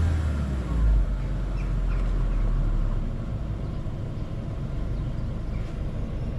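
2007 VW New Beetle's engine running steadily, heard at the exhaust as an even low rumble, a little louder in the first second. The car has a misfire that can be felt when driving but is hard to make out in the exhaust note.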